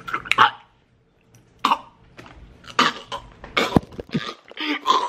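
A man coughing in several short fits while eating a whole dried scorpion body.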